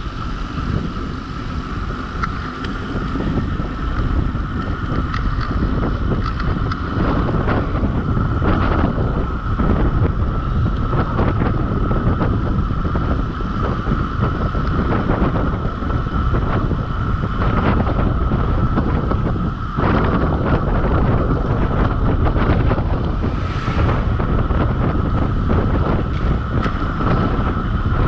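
Heavy wind buffeting the microphone of a bicycle on a fast downhill descent, with a steady high hum throughout and a few brief knocks.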